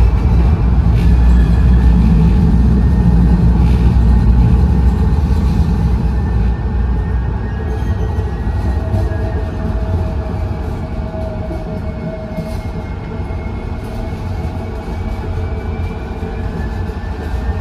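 2023 Siemens LRV4 light rail car running along the track, heard inside the cabin: a steady low rumble, loudest over the first several seconds and easing after. Faint whining tones slowly shift in pitch.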